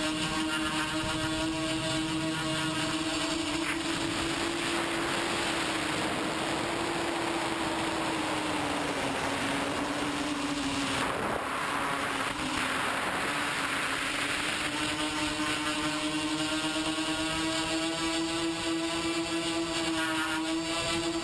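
TBS Discovery quadcopter's electric motors and propellers whining in flight, picked up on board as a steady pitched hum. The pitch sags a little in the middle, with a rushing noise over it, then climbs back near the end.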